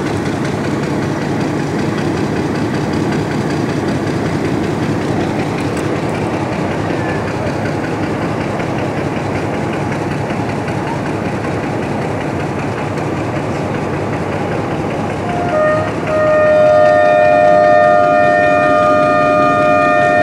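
Diesel locomotive and passenger train standing with a steady engine rumble. About fifteen seconds in, the locomotive's multi-tone horn starts one long, loud blast of about five seconds, the signal before the train pulls out.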